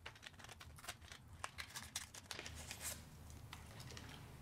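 Faint crinkling and small clicks of a microSD card's plastic blister pack and cardboard backing being handled and opened, a quick irregular run of crackles that dies down about three seconds in.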